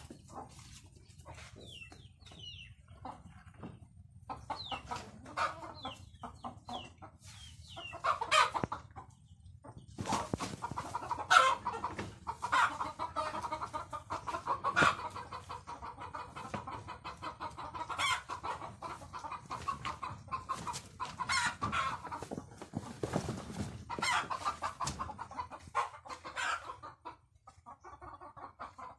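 Native chickens clucking, busy and repeated, with high short peeps that stop about eight seconds in.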